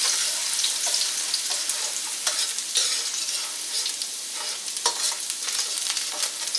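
Minced garlic sizzling as it fries in oil in a stainless steel wok, stirred with a long metal spoon that scrapes and taps against the pan every second or so.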